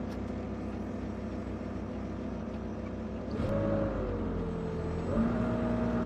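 Engine running steadily, its revs rising about three and a half seconds in, sagging, then picking up again near the end.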